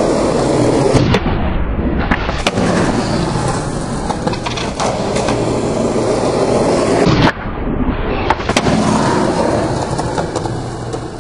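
Skateboard wheels rolling on concrete, with a few sharp clacks of the board scattered through the run.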